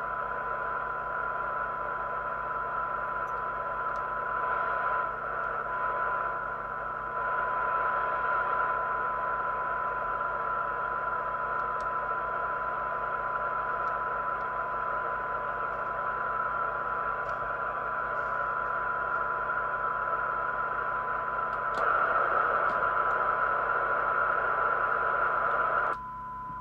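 Jesan PRO8000 CB receiver's audio output: a steady 1 kHz test tone from a weak signal-generator signal, half buried in receiver hiss, while the IF coils are peaked for best SINAD sensitivity. The hiss swells slightly a few times as the cores are turned and drops off abruptly near the end.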